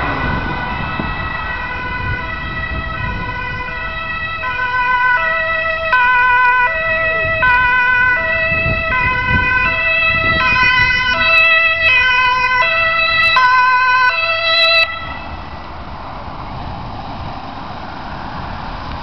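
Ambulance two-tone siren alternating between a high and a low note about every three-quarters of a second, getting louder as the ambulance approaches. It cuts off suddenly about 15 seconds in, leaving the engine and tyre noise of the Mercedes-Benz Sprinter ambulance as it drives up.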